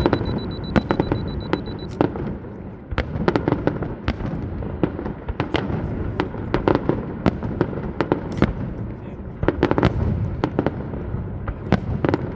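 Fireworks display going off: a dense, irregular run of sharp bangs and crackles, several bursts close together every second or so, over a continuous low rumble of launches and echoes.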